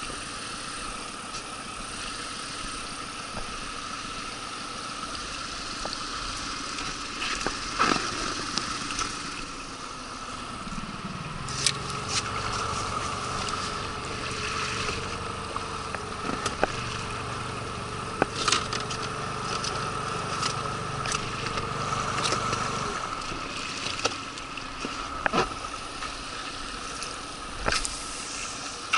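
Small boat motor running steadily with a constant whine, a deeper hum coming in about ten seconds in and stopping about thirteen seconds later, with a few sharp clicks.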